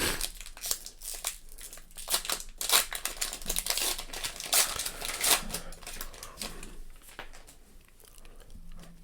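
Foil wrapper of a baseball-card pack crinkling and tearing open by hand, with the cards inside rustling as they are handled. It comes as a run of short irregular rustles and snaps that thin out near the end.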